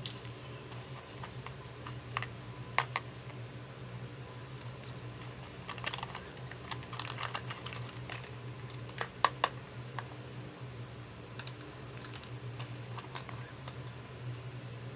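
Hard plastic toy pieces clicking and tapping as a pink plastic toy handbag is handled and turned over: scattered light clicks, with sharper double clicks near three seconds and about nine seconds in, over a steady low hum.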